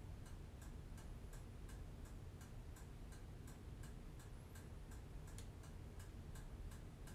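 Faint, steady ticking, about two ticks a second, over a low room hum.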